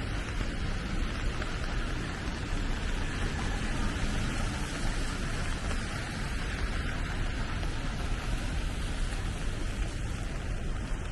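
Steady rain falling, an even hiss that neither builds nor lets up.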